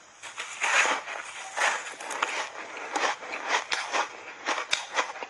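A big bite into a block of purple flavoured ice coated in milk powder, just under a second in, followed by crunchy chewing of the ice, several crunches a second.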